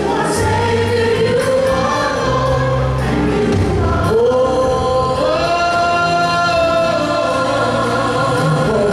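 Gospel choir singing with a male soloist leading on microphone, over low accompaniment notes. The voices hold one long note from about four seconds in to past seven seconds.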